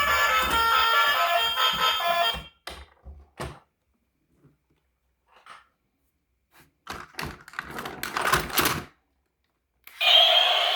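Background music that stops about two seconds in, followed by scattered clicks and knocks of handling, a denser clatter of knocks and rustling later on, and a steady tone starting just before the end.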